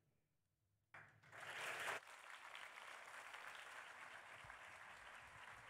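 Theatre audience breaking into applause about a second in, loudest at first, then steady clapping.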